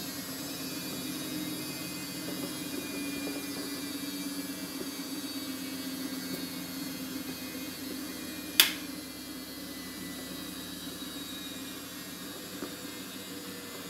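A steady low hum, with one sharp click about eight and a half seconds in as the ring light is handled on its tripod mount.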